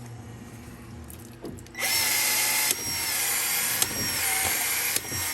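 Battery-powered PEX expansion tool starting up about two seconds in and expanding the end of a PEX pipe and its ring, its head cycling about once a second with a click at each stroke, then cutting off.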